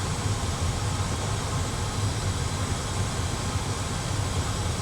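Steady cockpit background noise of an A320 flight simulator: a constant low hum under an even hiss, like airflow and engine noise in flight.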